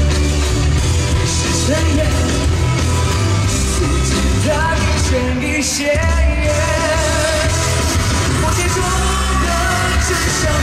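A loud live pop-rock song with a singer over a heavy bass beat, played through the hall's sound system and picked up from the audience seats.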